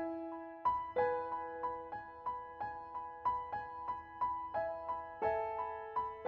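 Background music: a keyboard plays a repeating pattern of notes, about three a second, over held chords that change about a second in and again near the end.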